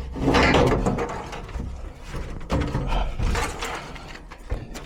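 Metal handling noises, clunks and scraping, as a furnace blower assembly is worked into its housing, in irregular bursts loudest at the start and again around the middle.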